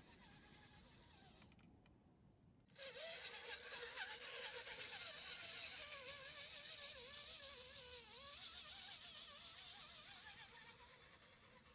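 HSP Pangolin 1/10-scale RC rock crawler's electric motor and gears whining, the pitch wandering up and down with the throttle as it climbs, over a steady hiss. The sound drops out briefly about two seconds in.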